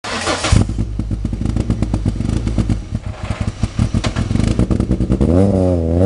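Peugeot 207 S2000 rally car's two-litre naturally aspirated four-cylinder engine running with a rough, uneven beat and a loud bang about half a second in. From about five seconds it is held at raised revs that rise and fall in waves.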